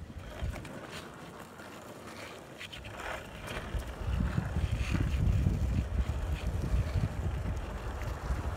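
Longboard wheels rolling on rough asphalt under a rider, with wind buffeting the microphone; the low rumble grows louder about four seconds in, and a few sharp clicks from the board come in the first half.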